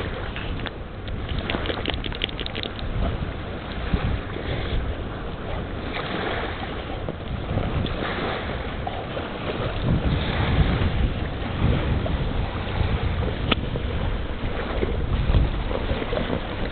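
Wind buffeting the microphone: a steady rushing noise with low rumbling gusts, a little louder in the second half.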